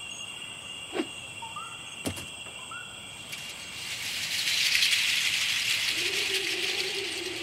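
Cartoon sound effects over a faint steady high whine: two soft thuds about a second apart and two short rising chirps, then an airy shimmer that swells up halfway through, joined near the end by a held low note.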